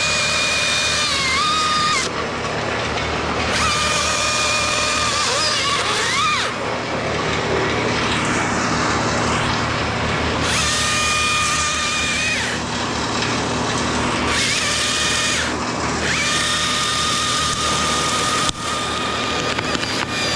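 Battery top-handle chainsaw (Husqvarna T540i) whining at high speed in about four runs, its pitch sagging and recovering as the chain bites into the wood. A steady low rumble runs underneath.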